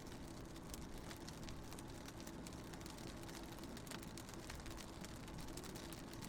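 Raindrops tapping irregularly on a car window, heard from inside a moving car over the car's steady low rumble and hum.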